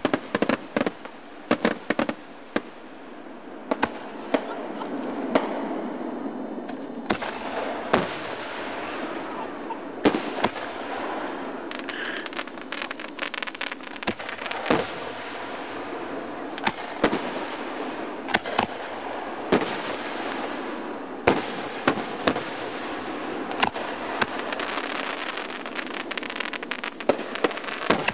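Fireworks display: aerial shells bursting in a rapid series of sharp bangs, some with a lingering echo, over a continuous noise that builds from about four seconds in.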